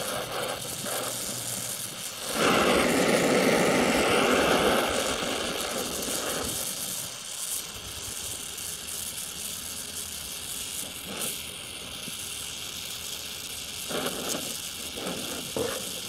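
Oxy-acetylene welding torch flame hissing steadily while fusion-welding steel plate with a filler rod. A louder rush lasts about two seconds near the start, and there are a few brief louder bursts near the end.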